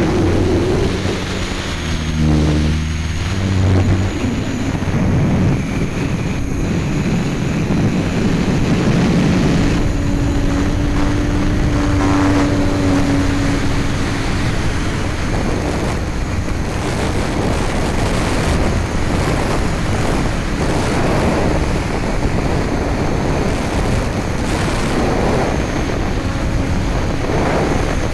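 Hexacopter's electric motors and propellers whirring in flight, heard through the keychain camera's microphone on the craft itself, with a steady rushing noise. The rotor pitch shifts with throttle, holding one steady tone for a few seconds in the middle.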